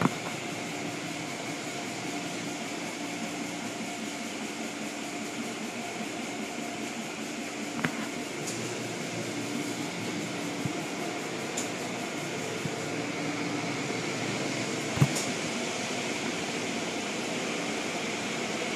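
Automatic car wash heard from inside the car: a steady rush of water spray and spinning cloth brushes against the body and windows over the hum of the wash machinery. A few sharp knocks stand out, one about 8 seconds in and a louder one about 15 seconds in.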